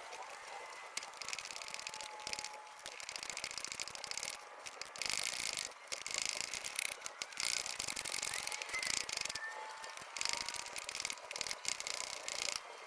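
Hand ratchet with a 10 mm socket clicking in runs of rapid clicks, with short pauses between runs, while working an EGR valve mounting bolt.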